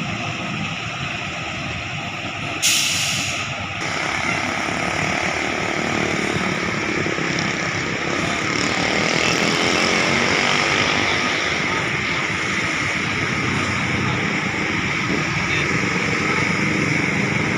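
Intercity bus engine running, with a sharp air-brake hiss lasting about a second, about three seconds in.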